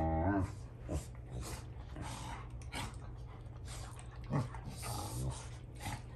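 Two Rottweilers, an adult and a young male, play-fighting and mouthing each other: a longer growl fades out in the first half second, then short broken growls and rough breathy huffs come and go.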